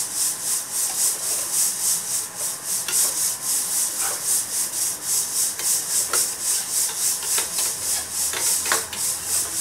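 A steel slotted spatula scraping and stirring curried vegetables around a steel kadhai in steady, rhythmic rasping strokes, with a few sharper clinks of metal on the pan.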